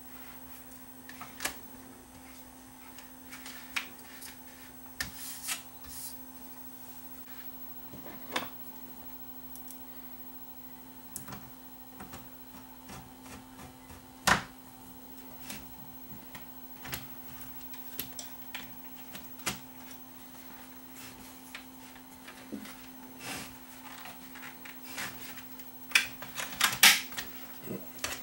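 Scattered clicks, taps and light knocks of screws and sheet-metal parts being handled and fitted on a cassette deck's chassis, with a sharp knock about halfway through and a flurry of clatter near the end. A steady low hum runs underneath.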